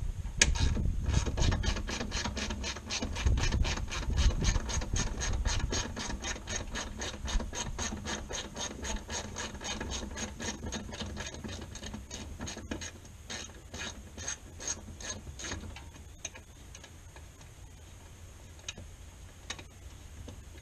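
Hand ratchet clicking steadily, about five clicks a second, as a 10 mm bolt is backed out. The clicking stops about fifteen seconds in, and only a few scattered clicks follow.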